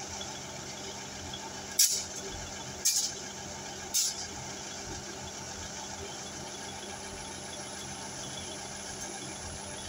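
Class 159 diesel multiple unit idling with its underfloor Cummins diesel engines, a steady rumble and hum. Three short, sharp hisses of air from the train's air system come about a second apart, around two, three and four seconds in.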